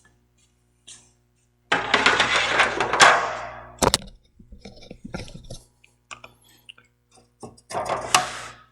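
Clattering and scraping of hard objects being handled, with a sharp knock about four seconds in and another rattle near the end.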